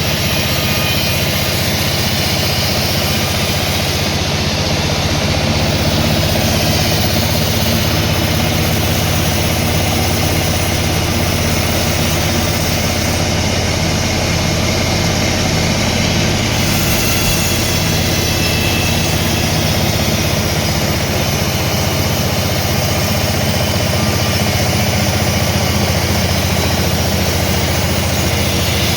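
Sawmill machinery running steadily, a continuous low drone that holds level without a break.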